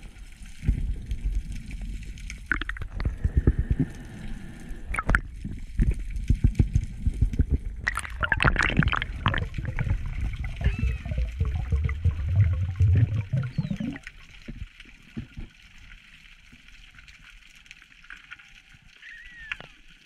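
Water sloshing and gurgling against an underwater camera housing as a spearfisher swims, with a louder rushing burst about eight seconds in. About fourteen seconds in it drops to a quiet underwater hiss with faint crackling.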